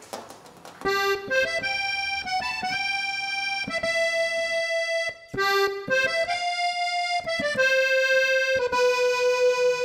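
Instrumental background music: a melody of held notes that starts about a second in, with a brief break about halfway through.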